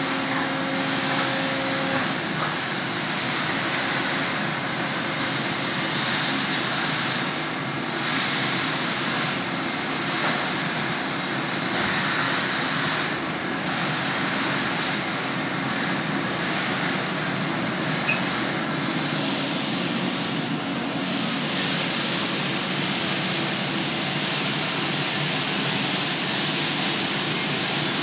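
Steady factory-floor machinery noise, an even rushing hiss with no rhythm. A low hum sounds for the first two seconds, and a single sharp click comes about two-thirds of the way through.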